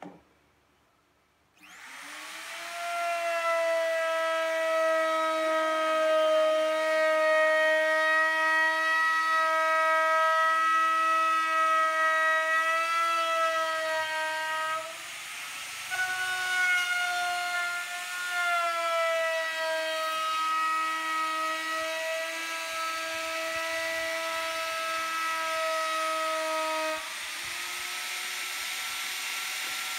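Electric power sander switched on with a click, spinning up within a second or two and then running with a steady high whine as it sands a wooden tabletop. The pitch wavers under load, with a brief dip about halfway through.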